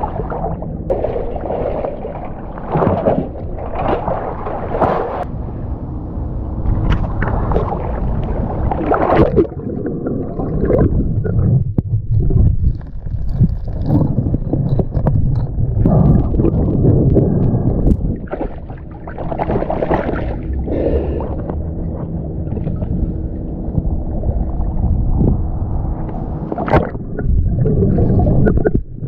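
River water sloshing and gurgling against a camera held at and under the surface, heard muffled and rumbling once the camera is underwater, in uneven surges as the swimmer moves through the water.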